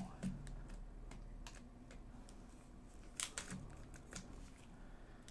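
Faint clicking and light rustling of foil trading-card packs being handled and stacked by hand, with a few sharper clicks, the loudest about three seconds in.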